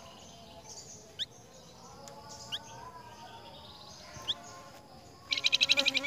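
Flamboyan songbird calling: three short rising whistled notes, a second or so apart, then near the end a loud, fast rattling run of notes.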